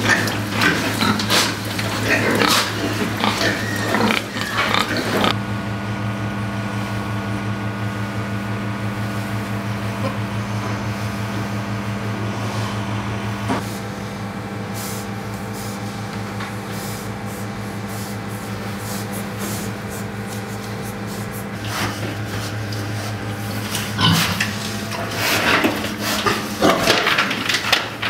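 Fattening pigs grunting in a crowded pen over a steady mechanical hum. The grunting fades after about five seconds, leaving mostly the hum, and picks up again near the end.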